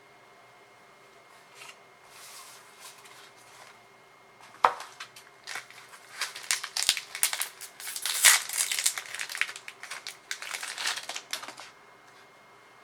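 Foil trading-card booster pack crinkling and tearing as it is opened by hand: soft rustling, a sharp snap about a third of the way in, then a dense run of crinkling and crackling that stops about a second before the end.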